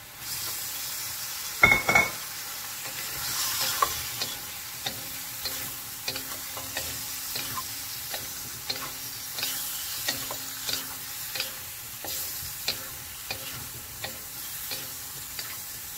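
Squid and shrimp hitting a hot wok of saucy noodles set off a sizzle. A sharp clink comes about two seconds in. Then two wooden spatulas toss and scrape the food against the wok in regular strokes, a little under two a second, over the continuing sizzle.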